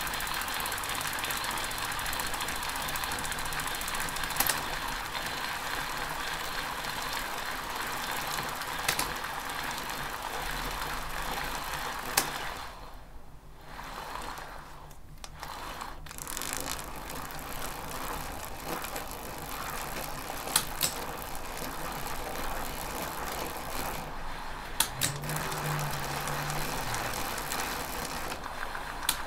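Shimano Alfine 8 (SG-S501) planetary hub gear running under pedalling, a steady quiet mechanical sound from its internal gears on their original factory grease. A sharp click from the handlebar shifter marks each gear change, about six of them; the hub itself makes no sound when shifting. The running sound dips for a few seconds about midway.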